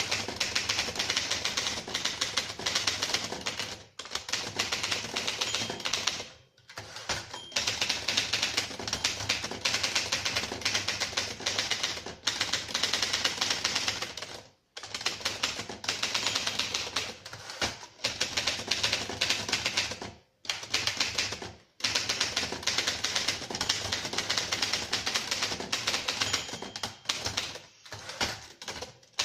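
1937 Rheinmetall portable typewriter being typed on at a quick, steady pace, a rapid run of key and typebar strikes with a few brief pauses.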